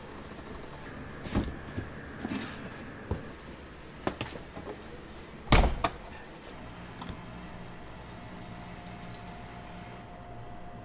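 A few sharp knocks and clunks of objects being handled, the loudest a heavy thud about five and a half seconds in, followed by a steady low hum with a faint thin whine.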